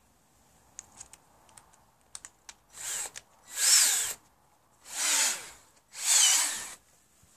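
Cordless drill-driver run in four short bursts of under a second each into wooden roof battens, its motor whine rising and falling in pitch with each pull of the trigger. A few light clicks come before the first burst.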